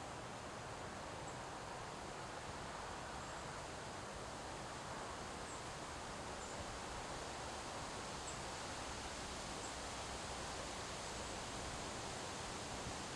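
Autumn wind blowing through trees, leaves rustling in a steady hiss, with a few faint high chirps.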